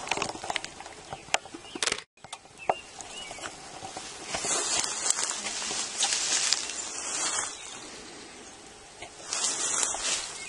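Leafy undergrowth rustling and swishing as someone pushes through it, with a few sharp clicks in the first two seconds. There is a brief gap in the sound about two seconds in, and the swishing is loudest in two stretches later on.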